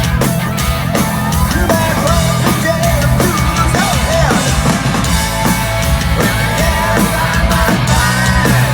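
A punk rock band playing live and loud, with drums pounding out a steady beat under guitars.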